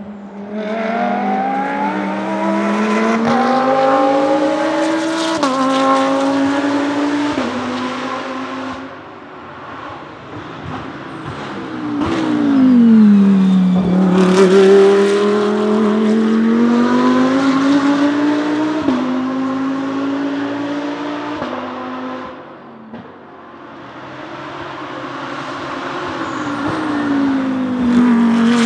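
Audi R8 LMS GT3 Evo II's 5.2-litre V10 racing engine accelerating hard, its note climbing and dropping back at each quick upshift, over several passes. In one pass the note sweeps down before climbing again through the gears.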